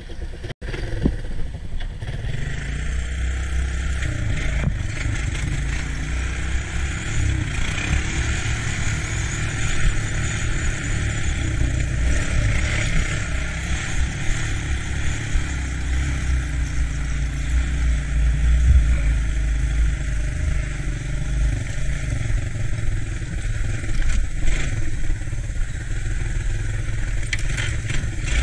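Three-wheeled ATC engine running steadily under way on a trail ride.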